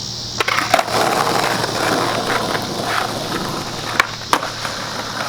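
Skateboard wheels rolling on pavement, with sharp clacks of the board hitting the ground: a pair under a second in and another about four seconds in.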